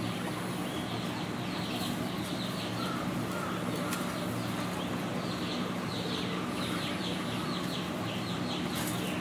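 Rapid short, high-pitched chirping calls from small animals, each falling in pitch and coming in quick runs, over a steady low hum.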